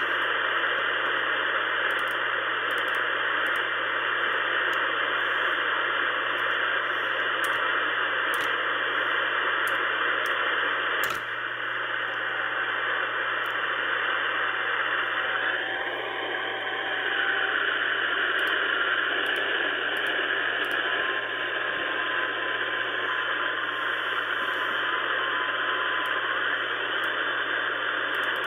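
Ten-Tec Pegasus HF transceiver receiving: steady band noise and hiss with a low hum under it. There is a single click partway through as the frequency changes, and faint thin whistling tones come and go while it is tuned around 14 MHz.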